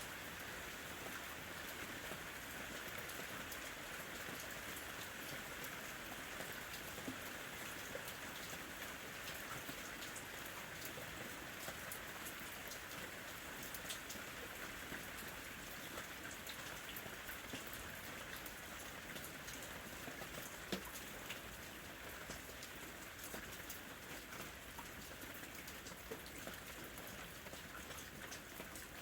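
Steady rain falling, with a dense even hiss and many small sharp drop ticks scattered through it.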